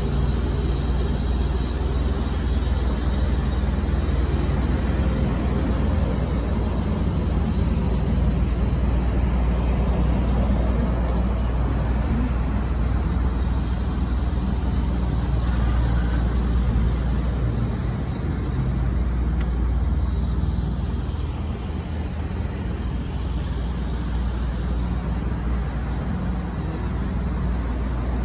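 Steady low rumble of motor-vehicle and traffic noise, with a faint constant engine-like hum.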